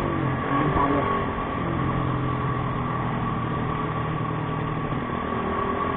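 Motorcycle running steadily while being ridden along a road, heard from the rider's position on the bike.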